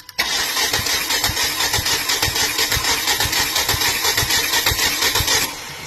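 Direct-injection car engine turned over by its starter for a compression test on cylinder 3, with an even rhythmic chug for about five seconds before it stops. The cylinder turns out to be the problem, most likely carbon buildup over the valves.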